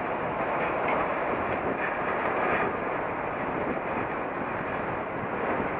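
Steady rushing noise of riding a bicycle along a rough path, picked up by a camera on the rider: tyres rolling over dirt and concrete, with wind on the microphone.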